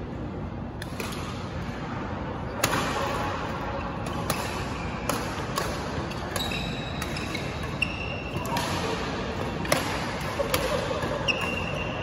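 Badminton rally: sharp cracks of rackets striking the shuttlecock, roughly every second, echoing in a large sports hall, with short high squeaks of court shoes on the floor midway through and again near the end.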